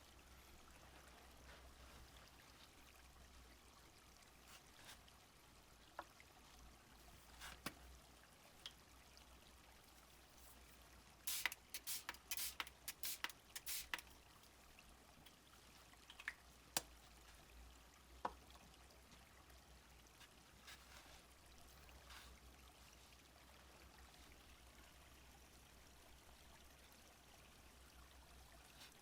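Faint ambience of a small stream flowing, a soft steady trickle. Scattered small sharp clicks and taps, with a quick flurry of them about eleven to fourteen seconds in.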